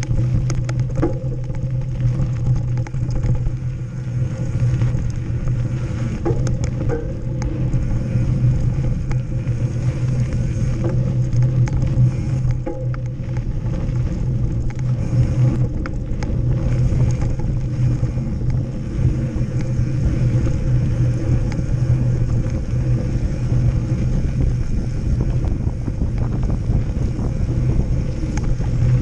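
Ride noise from a camera mounted on a mountain bike rolling along a gravel forest road and dirt singletrack: a steady rush of wind and tyre roll with a low hum, broken by scattered clicks and knocks as the bike goes over bumps.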